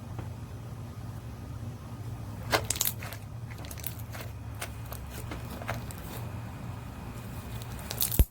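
Slime being squished and stretched by hand, making sharp clicks and pops: a burst of them about two and a half seconds in, scattered ones after, and the loudest just before the end. A steady low hum runs underneath.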